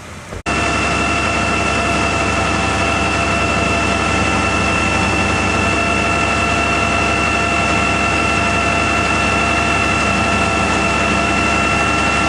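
Vehicle engine running steadily, with a steady high whine over it; it comes in abruptly about half a second in.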